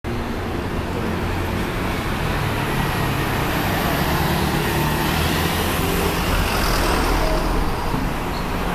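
Road traffic on a city street: passing cars and scooters making a steady mix of engine and tyre noise, which swells a little around seven seconds in.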